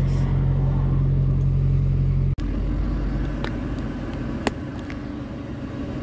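Truck's diesel engine idling steadily. About two seconds in, the sound cuts off abruptly and gives way to a quieter engine rumble with a few sharp clicks.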